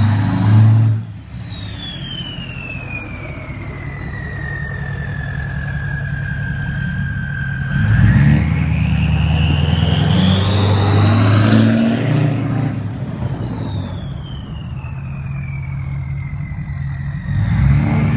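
Single S366 turbo on a 6.4 Powerstroke V8 diesel whistling under light throttle while plowing. The whistle climbs in pitch as the engine comes on throttle, then falls away slowly over several seconds when it is let off. This happens twice: it peaks about a second in, then again after a four-second climb mid-way. It is climbing once more near the end. The engine rumble swells with each climb.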